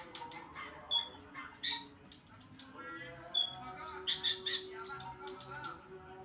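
Caged brown-throated sunbird (kolibri ninja) singing a rapid run of short, high, squeaky chirps. Its song is dominated by mimicry of the blue-crowned hanging parrot (srindit).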